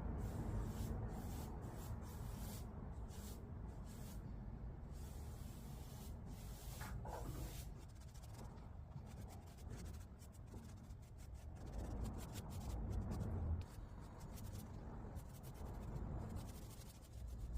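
Faint repeated rubbing strokes on a wooden surface, over a low steady rumble.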